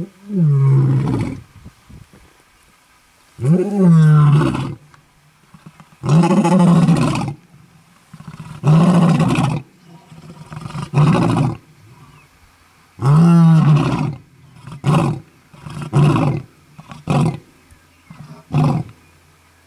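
Lion roaring, a territorial roaring bout of about ten calls. It opens with long moaning roars, the loudest full roars come in the middle, and it tails off near the end into a run of shorter, quicker grunts.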